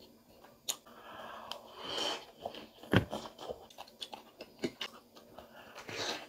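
Close-miked biting and chewing of crispy fried pig tail: scattered crunches and crackles, with one sharp loud crack about three seconds in.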